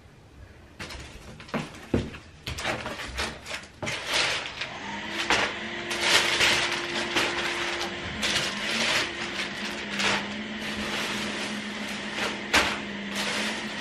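Packing paper crinkling and rustling as it is pulled out of a cardboard box and crumpled. A few scattered crackles at first, then continuous from about four seconds in.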